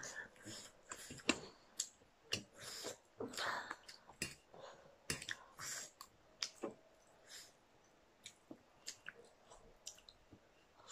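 Eating sounds of black bean sauce noodles and chicken close to the microphone: chewing, wet smacks and short irregular clicks, busier in the first half and sparser near the end.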